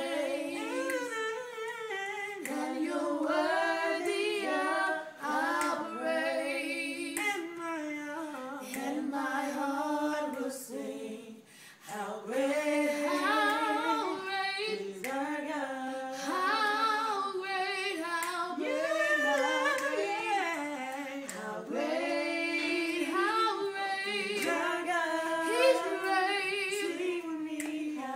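Unaccompanied singing with no instruments, continuing with a short break about twelve seconds in.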